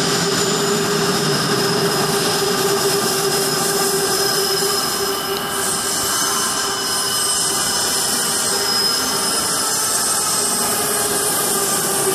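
Busan Metro Line 3 trains running through an elevated station: a steady rumble of steel wheels on rail with whining tones. One train pulls out at the start and another comes in on the far track near the end.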